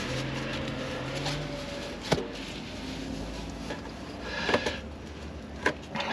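Hands working a heat-shield sleeve and the diesel heater's exhaust pipe under a van: rubbing and rustling, with three sharp clicks spread through.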